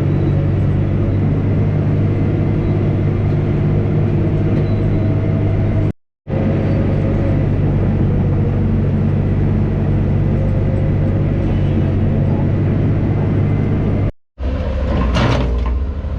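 Komatsu D65 bulldozer's diesel engine running steadily under load while pushing clay. The sound cuts out briefly twice. Near the end there is a run of sharp knocks.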